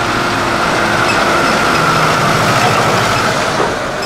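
Diesel engines of a John Deere 6130R and a Zetor Forterra tractor running steadily under load, each pulling a trailer loaded with 2 tons; the sound swells a little in the middle and eases near the end.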